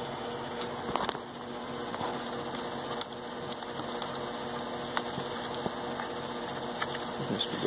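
Steady machine hum, with a few light clicks as a small plastic part is pressed into a motorcycle helmet's visor mount.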